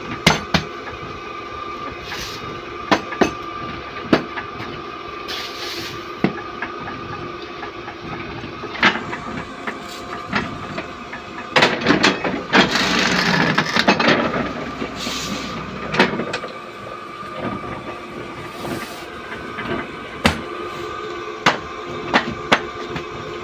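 Guillotine paper-cutting machine running with a steady hum, with sharp knocks as a stack of notebooks is handled on its steel bed. About twelve seconds in, a loud rushing noise lasting about two seconds as the blade comes down through the notebook stack.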